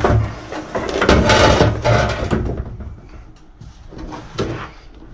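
Knocks, clunks and rustling from things being handled and moved, loudest and densest in the first two and a half seconds, then quieter with a single knock near the end.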